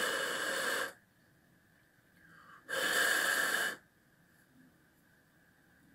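A person blowing out hard, two long breaths of about a second each, some three seconds apart, with a faint in-breath just before the second.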